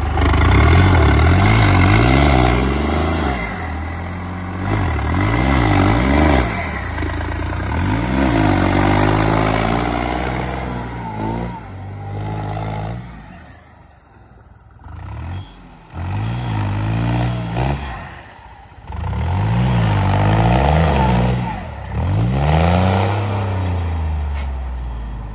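Diesel tractor engine under heavy load, revving up and dropping back again and again as the tractor struggles through deep mud.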